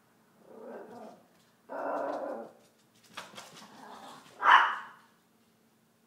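A Chihuahua barking in several bursts, the loudest about four and a half seconds in, with a quick run of sharp clicks between them.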